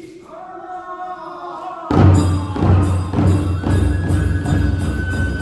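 Kagura music: a lone voice sings a drawn-out line, then about two seconds in a large taiko drum comes in loudly, beating about two to three times a second. Over the drum there is a high jingling shimmer and, from about halfway, a high held note.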